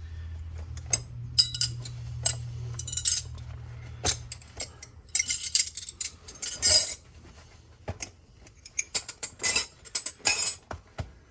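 Metal wrenches clinking and clattering against each other as they are handled and put into a tool bag, in irregular runs of sharp clinks with short pauses. A low steady hum runs underneath for the first four seconds or so, then stops.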